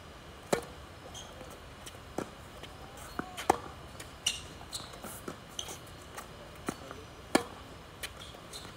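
Tennis rally on a hard court: sharp pops of racket strings striking the ball, starting with a serve about half a second in, with fainter ball bounces and hits from the far end in between. The loudest hits, about three and a half and seven and a half seconds in, are near-side topspin groundstrokes.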